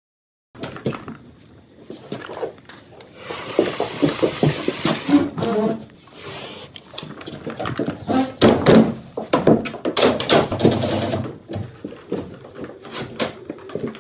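Drywall board being handled and knocked against a stud wall: irregular knocks, thumps and scraping of gypsum board, with a little room echo.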